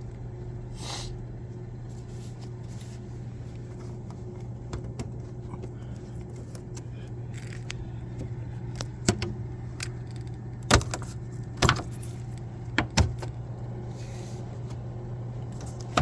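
Front plastic cover (toe grille) of a Kenmore side-by-side refrigerator being pried off, its clips giving a handful of sharp clicks and snaps in the second half, over a steady low hum.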